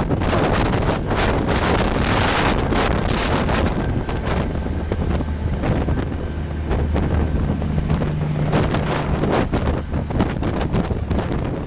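Diesel-hauled passenger train rolling past at close range: the locomotive's engine runs with a low hum, then the coaches' wheels clack over the rail joints, loudest a couple of seconds in. Wind buffets the microphone throughout.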